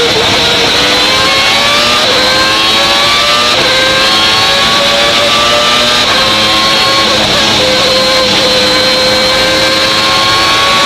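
A Williams FW14B Formula 1 car's Renault V10 accelerating hard, its pitch climbing and dropping sharply at each upshift, about four times. A high metallic whine from the straight-cut gears runs over the exhaust note.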